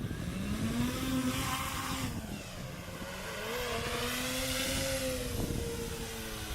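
Propellers of a 3D-printed VTOL tailsitter drone in flight, a steady buzzing hum that wavers up and down in pitch as the throttle changes, over a rough rushing noise.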